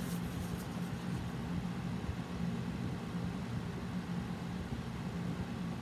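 Steady low hum with an even hiss underneath, unchanging throughout: room background noise from a running appliance such as a fan or air conditioner.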